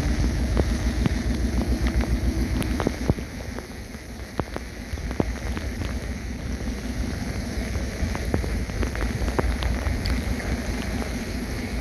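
Heavy rain falling on the sea and on a fishing boat, with many separate drops ticking sharply against surfaces over a low rumble. It eases a little about three seconds in.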